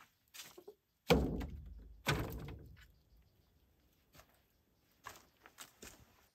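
Two heavy thuds about a second apart, each dying away over about a second, among light clicking and scraping.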